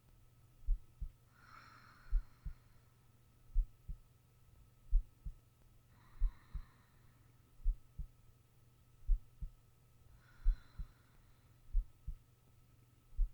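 A sleeping person's heartbeat: a steady double lub-dub thump about every one and a half seconds. Soft, slow sleeping breaths come every four seconds or so.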